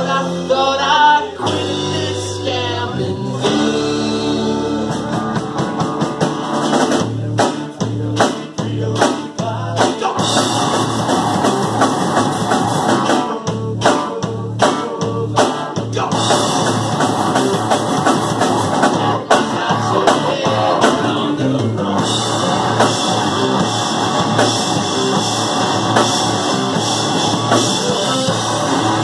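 Live rock band playing loud, with electric and acoustic guitars, bass and drum kit, in a style mixing thrash metal and bluegrass. It opens on guitar lines, and the drums and full band come in about ten seconds in.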